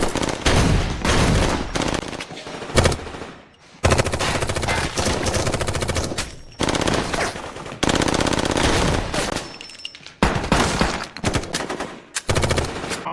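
Rapid automatic gunfire in several long bursts, broken by short pauses.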